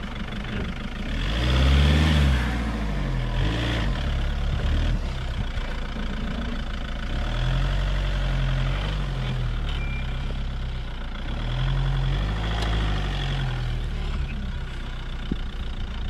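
Citroën C8 minivan's engine revving up and down several times, loudest about two seconds in, as the front-wheel-drive car struggles to climb a steep grassy slope.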